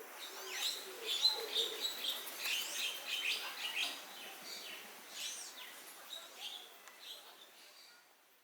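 Small birds chirping and twittering, with many short high calls, some rising and some falling, overlapping through the middle and then thinning and fading out near the end.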